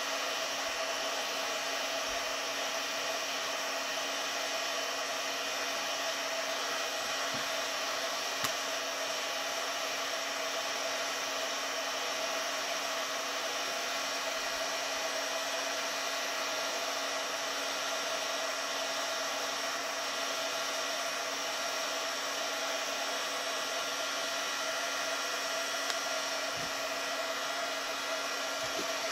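Electric heat gun blowing steadily, heating a Kydex mag carrier to soften it for bending, with a couple of faint clicks.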